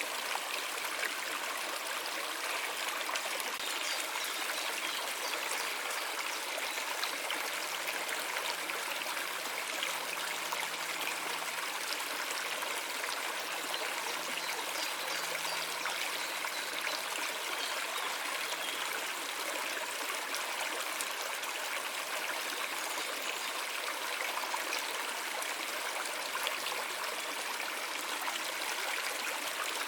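Stream water running and trickling in a steady flow.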